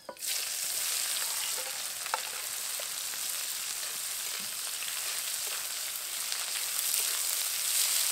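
Chopped onion hitting hot mustard oil in a kadai: a sizzle starts suddenly and then holds as a steady, even hiss.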